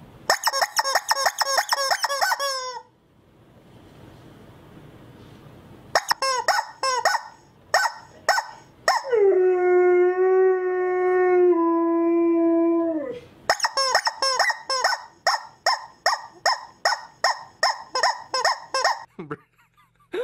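Rubber chicken squawks used as a sound effect. A quick run of short honks comes first, then a few more, then one long held screech that drops in pitch in steps, then a steady string of short honks about two a second.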